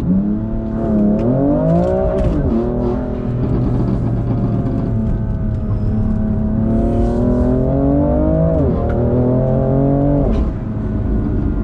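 2018 BMW M3's twin-turbo straight-six under hard acceleration. The revs climb and drop sharply at an upshift about two and a half seconds in, hold fairly steady, then climb again through two more quick upshifts near the end.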